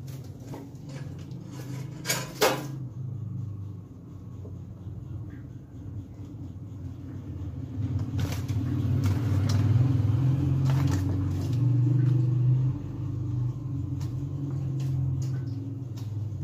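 Low, steady rumble of a running motor that swells louder for several seconds in the middle, with a sharp clatter about two seconds in.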